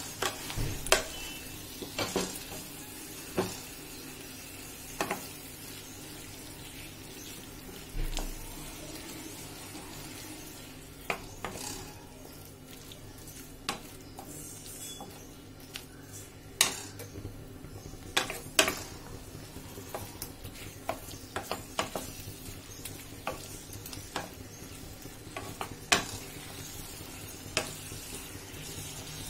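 Spatula stirring soya chunks and potatoes in a kadai, knocking and scraping against the pan at irregular moments over a low sizzle as the curry is sautéed in its masala.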